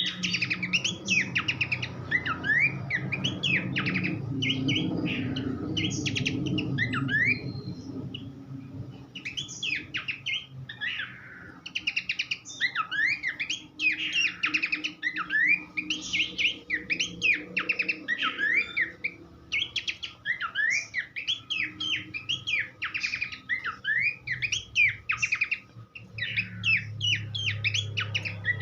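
Horsfield's babbler (pelanduk semak) singing a fast, varied stream of short chirps and quick rising and falling whistled notes, over a low steady hum.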